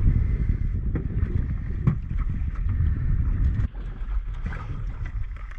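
Wind buffeting the microphone on an open boat, a steady low rumble, with a few light knocks, the clearest about one and two seconds in.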